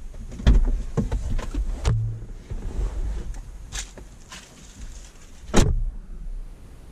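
A pickup truck's door opening and being pushed shut: a few clicks and knocks of the latch and of someone climbing out, then one loud slam about five and a half seconds in.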